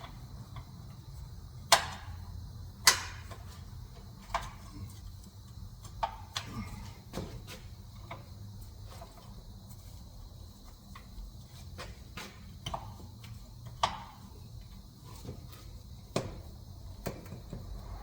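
Irregular sharp knocks and clicks of hand tools and metal parts being handled, two louder ones about two and three seconds in, over a low steady hum.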